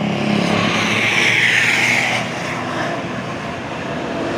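Tour bus driving past close by, its engine and tyre noise swelling to a peak about a second and a half in, then easing off as it moves away.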